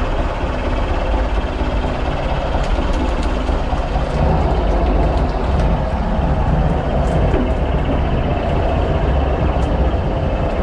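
Fishing boat's engine running steadily, with a few faint light taps over it.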